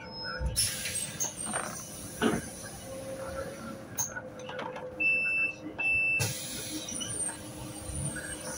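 Inside a Solaris Urbino 12 city bus stopped at a bus stop, with a steady low cabin hum. A burst of air hiss comes about half a second in, with a few knocks and clicks after it. Two short electronic beeps sound about a second apart past the middle.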